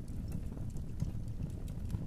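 Wood fire burning in a fireplace: a steady low rumble of flames with scattered faint crackles and pops.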